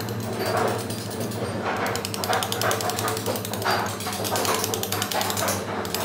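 Pneumatic carving chisel chattering against sandstone, a fast, even run of small impacts that grows louder in uneven patches as the tip bites into the stone.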